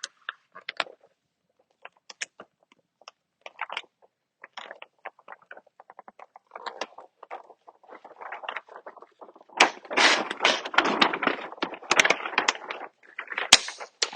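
Backing paper of a vinyl wall decal being peeled off and handled: scattered crackles and rustles. From about two thirds of the way in comes a dense stretch of louder crackling as the backing is folded back.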